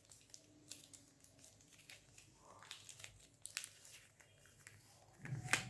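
A soap's wrapper being crinkled and torn open, with scattered crackles and rips, and a louder thump near the end.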